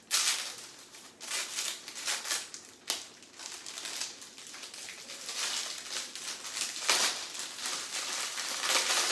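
Clear plastic cellophane sleeve around a bundle of dried pampas grass stems crinkling in repeated bursts as it is handled and worked off the stems, with one sharp click about three seconds in.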